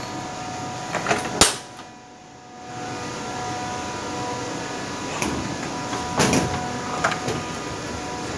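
Steady hum of ice-plant machinery with several steady whining tones, broken by a few sharp knocks and clanks. The hum drops briefly about two seconds in.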